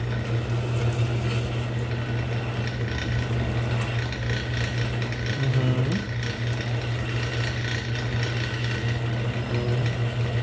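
Small lathe running with a steady motor hum while the cutting tool scrapes chips off the metal ergo button being turned. The motor's pitch dips briefly about halfway through as the cut loads it.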